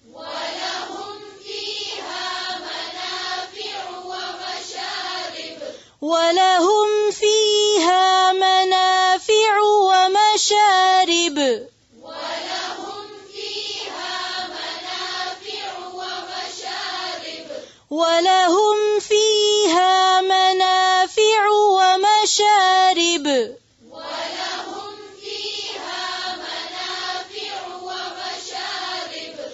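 Quranic recitation chanted by a female reciter, slow melodic phrases drawn out on long held notes. Softer passages alternate with louder ones about every six seconds.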